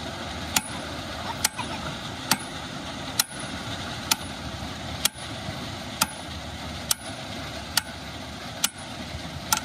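A hammer strikes a bearing on the end of a jaw crusher's steel eccentric shaft in a steady rhythm, about one blow a second, eleven times. Under the blows is a steady background engine noise.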